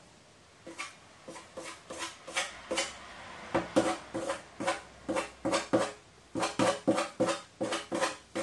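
A pet crow pecking with its beak at the wall behind a chest of drawers: a string of short, sharp taps, sparse at first and coming about three a second from about halfway through.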